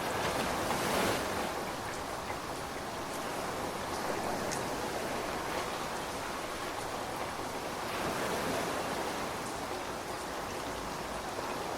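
Ocean waves breaking and washing up the beach in swells about every four seconds, over a steady hiss of rain.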